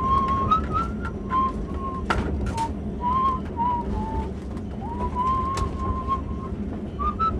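A person whistling a slow, wandering tune in short held notes, with a few sharp clicks and a steady low hum underneath.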